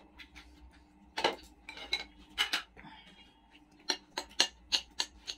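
Spoons clinking against dinner plates: scattered sharp clinks, then a quicker run of about half a dozen in the last second and a half.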